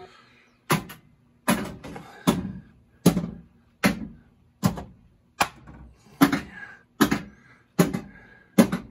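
Williams WPC pinball machine coils fired one after another by the solenoid test (outhole kicker, kickback, left jet bumper): a sharp clack about every 0.8 seconds, some doubled, each with a short rattle after it. Every coil fires, so the repaired PinLED power/driver board is driving the solenoids properly.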